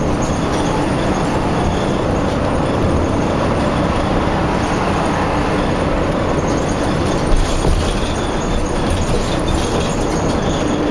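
Steady, loud rumble of heavy vehicles running close by, with a faint steady hum underneath.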